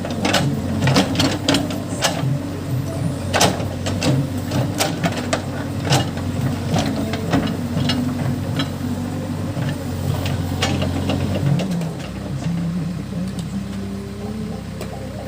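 Case backhoe loader's diesel engine running under working load, with many sharp knocks and clatter through the first part, then the engine note shifting about twelve seconds in.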